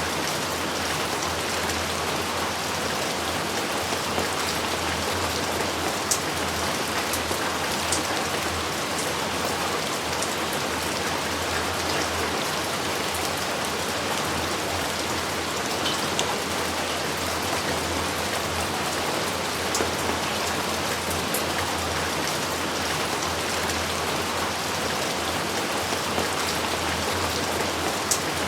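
Steady rain falling, an even hiss of many drops, with a few sharper ticks of single drops landing close by.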